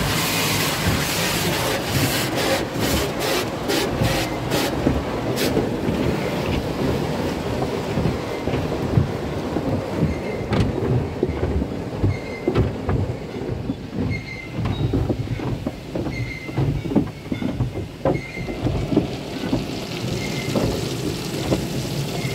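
Automatic tunnel car wash heard from inside the car: water spray drumming on the body and glass, and cloth wash curtains and brushes slapping against the car in irregular thuds, thickest in the middle.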